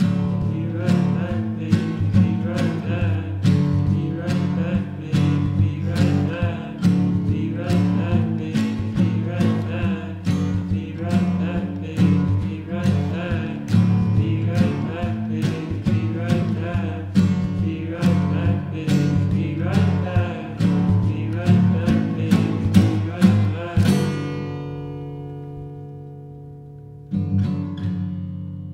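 The end of an indie folk song, played on strummed acoustic guitar. Near the end the strumming stops and a chord rings out and fades, then one last strummed chord rings out.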